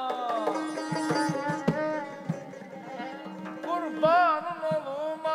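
Live Azerbaijani mugham ensemble playing between sung lines: daf frame drum and naghara drum strike a busy rhythm under a wavering melodic line and a held drone. A sung phrase fades out about half a second in.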